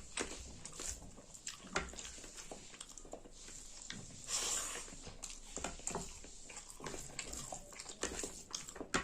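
Close-up eating sounds: chewing and wet lip-smacking while eating rice with saag, with a brief breathy slurp about four and a half seconds in.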